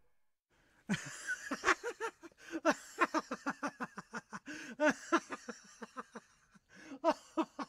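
Laughter: a long run of quick 'ha-ha' syllables starting about a second in, a short pause, then a few more near the end.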